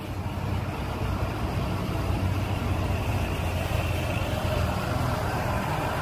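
Double-decker coach bus driving slowly past, its diesel engine a steady low drone that grows slightly louder over the first second.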